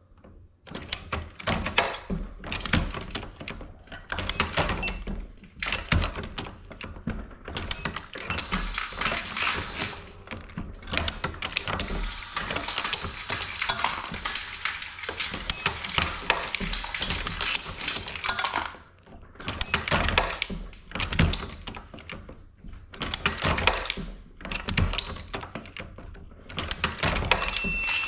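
Dillon 750 progressive reloading press being cycled by hand: repeated metallic clanks and clinks from the ram, the shell plate indexing and brass cases rattling, in bursts with short pauses and a denser run of clatter in the middle.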